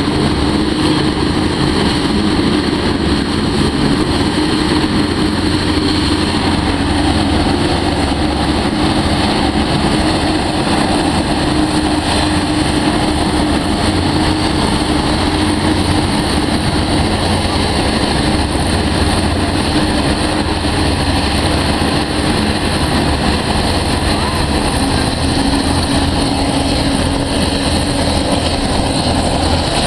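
Griffon 12000TD hovercraft running on its landing pad, engines, lift fans and twin ducted propellers all turning: a loud, steady drone with a constant propeller hum over a deep rumble.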